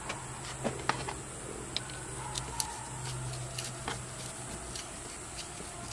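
Flathead screwdriver turning the screw of a hose clamp on a water pump hose, giving scattered light metallic clicks at uneven intervals.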